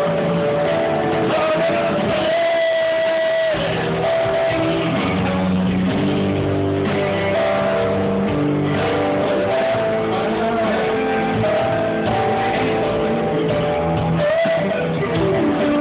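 Live band playing a slow rock song: guitar and bass with drums, a lead line of long held notes that bend in pitch, and singing. Heard from the audience in the hall.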